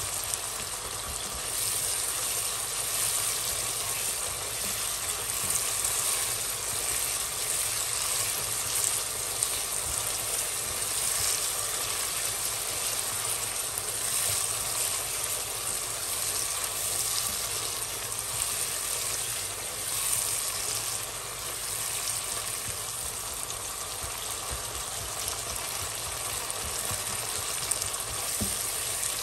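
Chopped red onion, tomato and peppers sizzling steadily in hot oil in a nonstick pot as they are stirred with a spatula.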